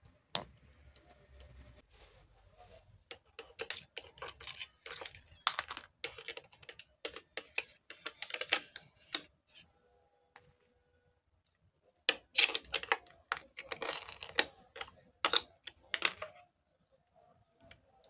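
Shattered glass of a CRT monitor's screen crackling and clinking as small fragments break and fall: two spells of rapid small clicks and ticks, each about four to six seconds long, with a quiet gap between them.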